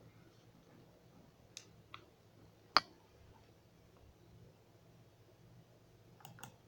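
Quiet room tone with a low steady hum and a few scattered sharp clicks, the loudest about three seconds in.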